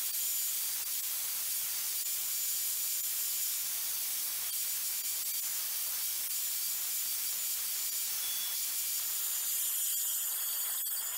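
Milwaukee angle grinder with a diamond blade grinding away the relief-cut fins of a tile to shape a round hole, a steady high hiss of blade on tile with a few clicks near the end.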